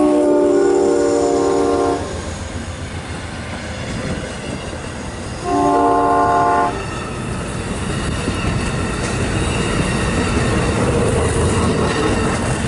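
Amtrak P42DC locomotive's multi-chime air horn, sounding a long blast that ends about two seconds in and a short blast about six seconds in. Under the horn is the steady rumble and wheel clatter of the train's Superliner cars rolling slowly past.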